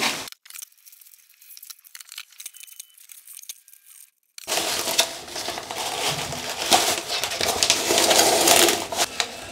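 Thick 7 mil plastic drop cloth crinkling and rustling as hands press and smooth it flat, with blue painter's tape being handled. The first four seconds are much quieter, with only faint scattered ticks; the dense crinkling starts about four seconds in.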